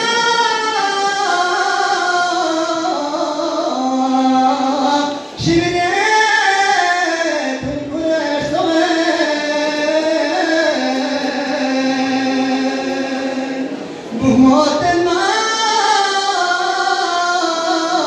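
Marsiya, a Shia elegy for Muharram, chanted by a single reciter in long, held melodic lines, with brief pauses for breath about five seconds and fourteen seconds in.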